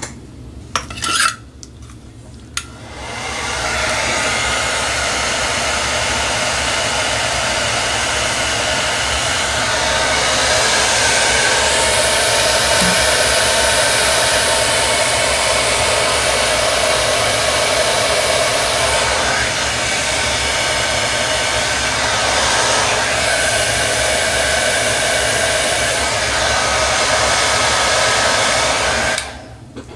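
Heat gun blowing hot air to shrink heat-shrink tubing over thermocouple wires: a steady rush of air that switches on about three seconds in and cuts off just before the end, its tone turning brighter and duller a few times along the way. A few short clicks come before it starts.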